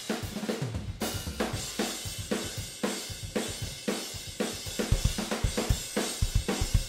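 Raw multitrack drum recording of a pop-punk kit playing back: close-miked toms with the overhead and room mics blended in, the snare heard through the overheads and rooms alone because its direct mic is muted. A steady beat of kick, snare and cymbals, with the kick drum hitting harder and faster from about five seconds in.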